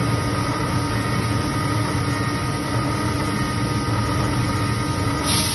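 Repaired machine spindle motor running steadily on test, a steady hum and whine without changes in speed.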